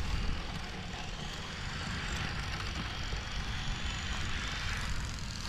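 Small electric RC Formula 1 car running laps: a faint high motor-and-gear whine that rises and falls a little with speed, over a low rumble on the microphone.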